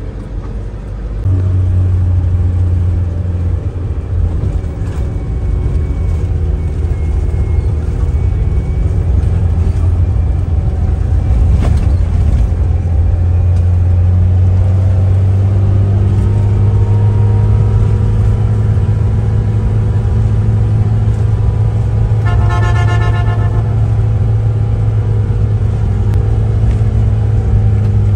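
A 30-seat bus's engine and road rumble, heard from inside the moving bus, a steady low drone that grows louder about a second in. A horn toots once, for about a second, around twenty-two seconds in.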